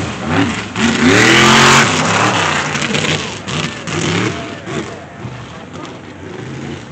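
Mega truck engine revving hard, pitch surging up and down several times as it runs the dirt course. Loudest in the first couple of seconds, then fading as the truck moves off.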